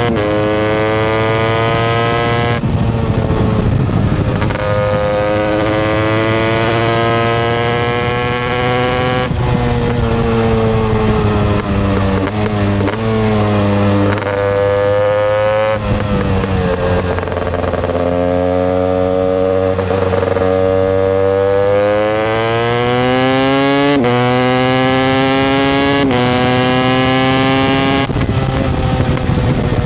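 Husqvarna 250 TEI's single-cylinder two-stroke engine being ridden, its pitch repeatedly climbing under throttle and falling back, with several sudden drops in pitch between rises.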